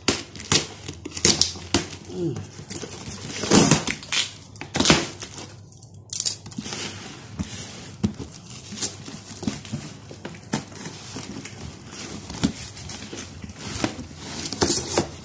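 Packing tape being ripped off a cardboard box and the box's cardboard flaps pulled open, with crinkling of cardboard and wrapping. Several sharp rips, the loudest about three and a half and five seconds in.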